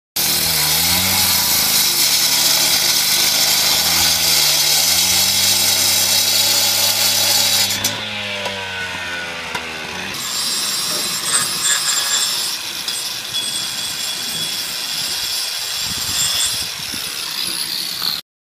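Electric angle grinder cutting a precast cast-stone handrail, its motor pitch dipping and recovering as the disc bites into the stone. About eight seconds in the motor winds down. A couple of seconds later a grinder runs again with a higher whine until the sound cuts off abruptly.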